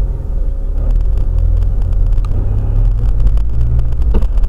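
Steady low rumble of a car's engine and tyres heard from inside the moving car through a dashcam microphone.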